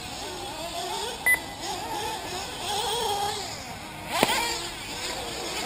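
Small two-stroke nitro engines of 1/8-scale RC buggies revving up and dropping off as they race, their pitch rising and falling. A short high beep comes about a second in and a sharp click about four seconds in.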